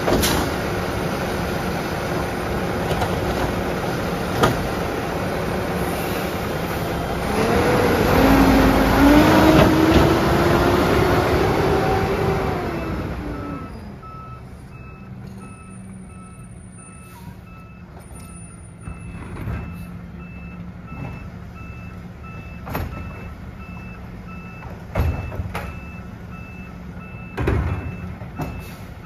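Peterbilt garbage truck with a Labrie Automizer side-loader arm running loud, its engine revving up under hydraulic load while the automated arm handles a cart, then fading as the truck pulls away. From about halfway through an alarm beeps evenly about once a second, with a few sharp knocks late on.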